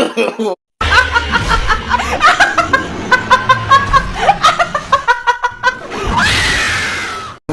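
A woman laughing in quick repeated bursts, then a long shriek near the end that cuts off suddenly.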